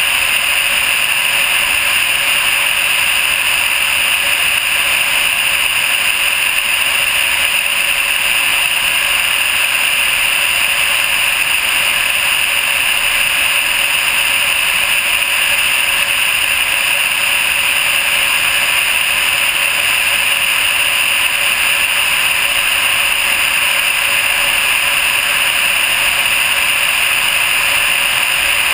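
Steady rush of airflow over a GoPro camera mounted on the nose of a Vega glider in flight: a constant loud hiss that doesn't change.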